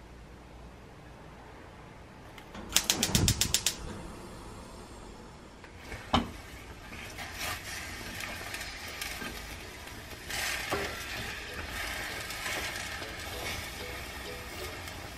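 A quick run of sharp clicks about three seconds in and a single knock a few seconds later, then a spatula stirring and tossing shredded chicken, leeks and bean sprouts in a stainless steel pot, with scraping, rustling and an occasional knock against the pot.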